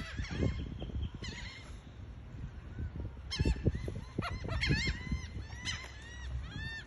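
Birds calling: a run of short, arching high-pitched calls, a few at first and then many in quick succession from about halfway, over a low rumble with irregular thumps.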